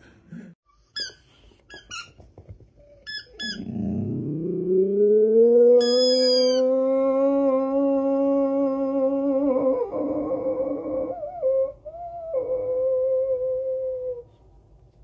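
Dog howling: one long howl that rises steeply at the start and then holds a steady pitch, wavers and breaks about 11 to 12 seconds in, then a shorter second howl. Before the howl, a few sharp clicks.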